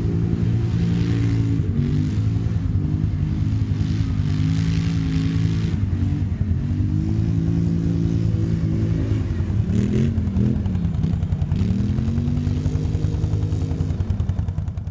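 Quad (ATV) engine running, its pitch dipping and rising as the throttle is worked, with a few quick rev swings up and down about ten seconds in.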